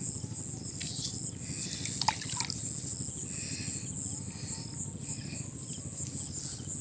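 Water dripping and trickling off a wet monofilament gill net as it is hauled in by hand from the water, with a few small clicks over a steady low background.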